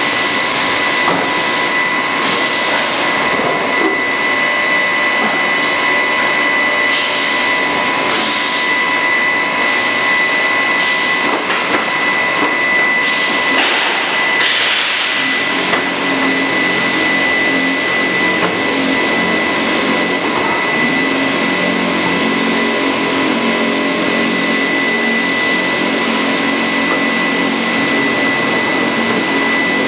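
Grinding-ball production line machinery running with a loud, steady noise and a constant high whine. A lower hum joins about halfway through.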